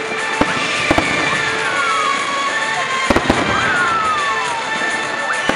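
Fireworks display: sharp bangs of bursting shells at irregular intervals, with a close pair about three seconds in, over a continuous din.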